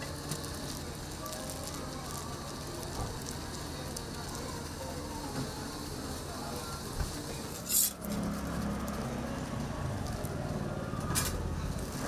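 Food sizzling on a hot flat griddle, a steady frying hiss, with two brief louder hisses about two-thirds of the way through and again near the end.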